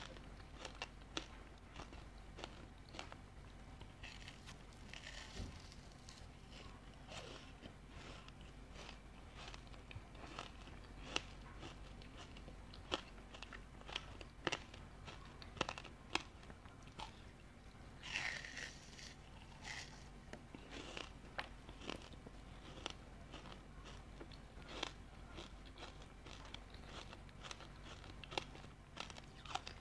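Frozen ice coated in matcha powder being bitten and chewed: irregular sharp crunches and cracks of ice between the teeth.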